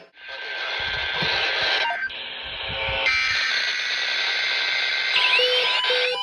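Weather radio emergency alert signal: a few seconds of raspy, hissing signal, then from about five seconds in a beeping alarm that alternates between a low and a higher tone. This is the alert sequence of a routine weekly test.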